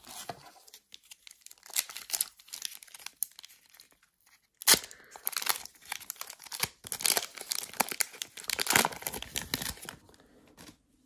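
A Pokémon TCG booster pack's foil wrapper crinkling as it is handled, then torn open with loud, sharp crackling for about five seconds from near the middle, ending in quieter rustling as the cards are slid out.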